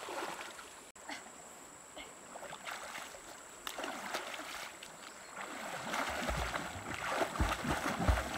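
River water sloshing and splashing as a person wades through it, pushing water with her arms; the splashing grows louder over the last few seconds, with dull low thuds near the end as she drops into the water.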